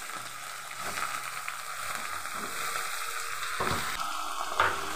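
Eggplant and onion pieces frying in mustard oil in a metal pot, a steady sizzle. Near the end there is a short clatter and knock as potato pieces go into the pot.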